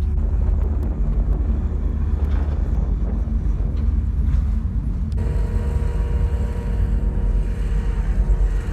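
Blizzard wind rumbling hard on the microphone, heavy and low. About five seconds in the sound changes abruptly and a steady hum joins it.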